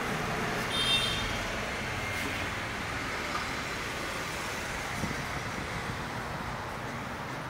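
Steady street traffic noise, with a short high-pitched tone about a second in.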